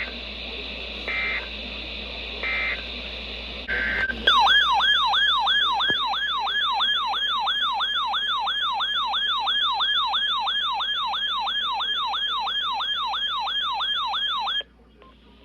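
Emergency Alert System tones: three short bursts of buzzing digital data tones, a brief single tone, then a loud warbling alert tone that sweeps up and down about three times a second for about ten seconds and cuts off suddenly.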